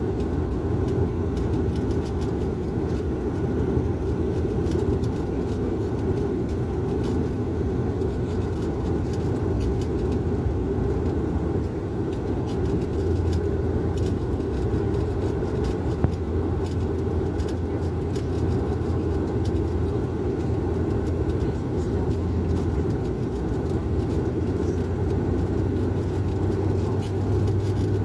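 Steady airliner cabin noise on the descent: a deep drone of engines and airflow. A low hum in it grows stronger about halfway through and again near the end.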